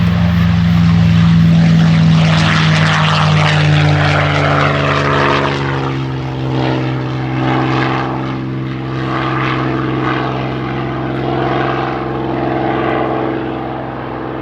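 A propeller-driven airplane's piston engine running as the plane flies by, loudest about two seconds in and then fading slightly, with its pitch dropping as it passes.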